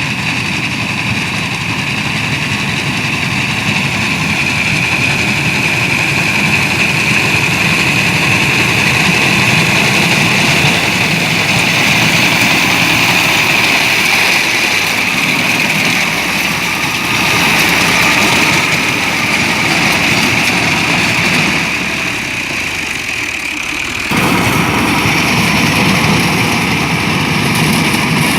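Harvesting machinery engine running steadily, with a continuous mechanical whine over the engine noise; it dips for a couple of seconds and then comes back in sharply near the end.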